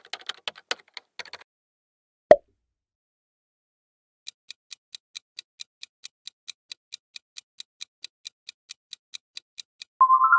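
Quiz-video sound effects: a quick run of keyboard-typing clicks, a single loud pop about two seconds in, then a clock-ticking countdown at about four ticks a second. Near the end the ticking gives way to a loud rising chime for the correct answer.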